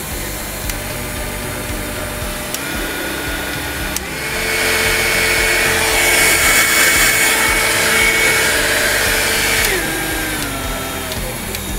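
Bosch MFQ4030 electric hand mixer motor running with a steady whine. It steps up in pitch and loudness about two and a half and four seconds in, holds at its top speed, then steps back down through its speeds near the end as the slider is moved.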